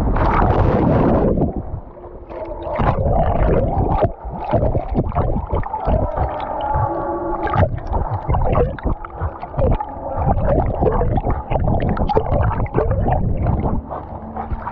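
Dog plunging into a swimming pool, heard through a wet camera strapped to its back: a loud splash in the first second and a half, then muffled underwater churning and gurgling with irregular sloshes and knocks as it swims.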